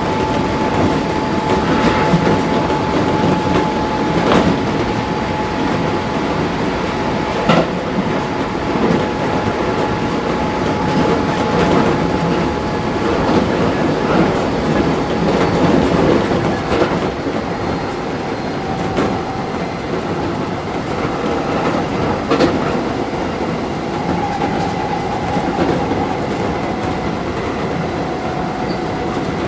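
Keisei 3400 series chopper-controlled electric train running at speed, heard from inside a passenger car: steady wheel and track rumble with separate clicks over rail joints. A steady whine fades about halfway through and a lower tone takes over near the end.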